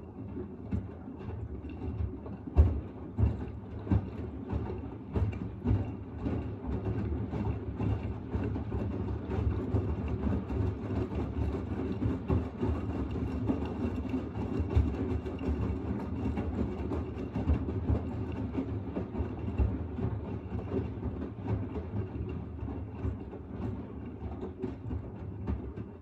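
Front-loading washing machine in its wash cycle, the drum turning a wet load of laundry in soapy water: a steady low hum with irregular knocks and sloshing, and a faint steady high whine.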